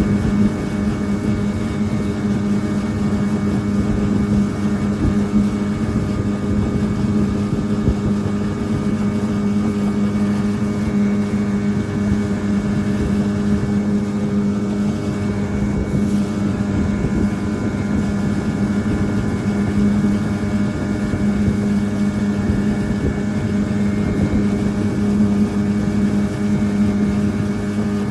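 Motorboat engine running at a steady speed. Its even drone holds one pitch throughout, over a rough rushing noise of wind and water.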